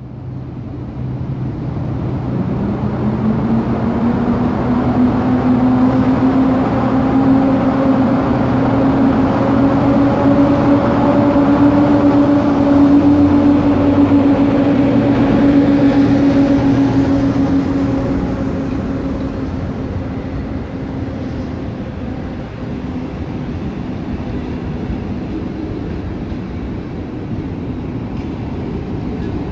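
PKP Intercity EP07 electric locomotive pulling a passenger train away from the platform and passing close by. A whine rises in pitch over the first few seconds and then holds as the train gathers speed; it is loudest about halfway through as the locomotive goes past, then gives way to the steadier rumble of the coaches rolling by.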